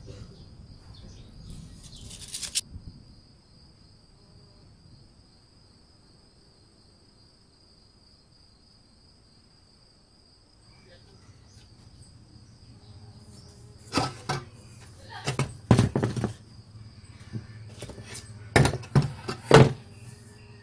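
Steady high-pitched cricket chirping throughout, under a few sharp knocks and clatters from an aluminium scooter crankcase cover being handled. The knocks come once about two seconds in, then in two loud bunches in the second half.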